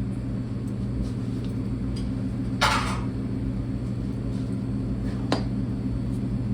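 A steady low mechanical hum, with a brief rustling burst about two and a half seconds in and a single sharp click a little past five seconds.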